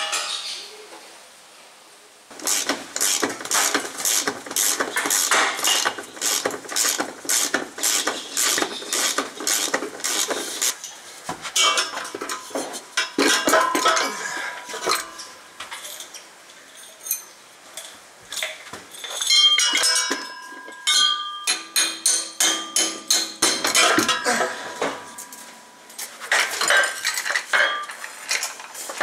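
Metal hand tools clicking and clanking against a car's underbody while parts are unbolted to drop the gearbox. A quick run of evenly spaced clicks, about three a second, lasts some eight seconds, then come scattered clanks, some ringing briefly.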